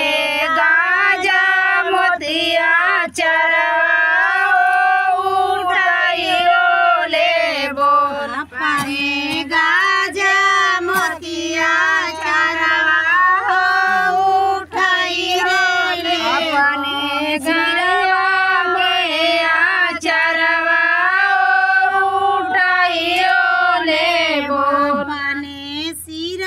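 A woman singing a Bhojpuri devotional folk song alone, with no instruments: long held notes in a high voice, with short breaks between lines.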